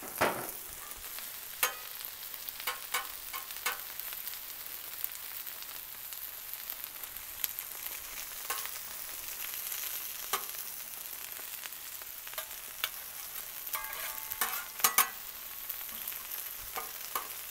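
Smashed ground-beef patties sizzling on a hot Blackstone flat-top griddle: a steady high hiss. Metal spatulas click and knock against the steel plate now and then, most of all in a short run of knocks about four-fifths of the way through.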